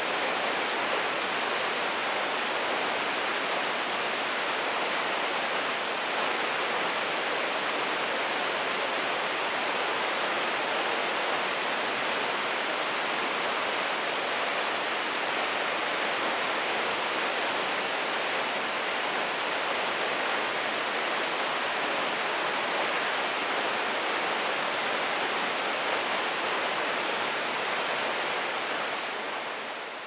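Kegon Falls, a tall waterfall plunging down a cliff, giving a steady, even rush of falling water that begins to fade out near the end.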